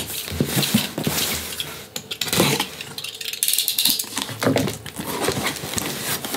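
Utility knife slitting packing tape on a cardboard box, a clatter as the knife is laid down on the table, then cardboard flaps scraping and rustling as the box is pulled open. Many short clicks and scrapes.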